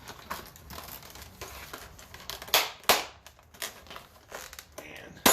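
Stapled pushrod packaging being handled and torn open: crinkling and rustling, with two louder sharp rips about two and a half and three seconds in and a sharp snap at the very end.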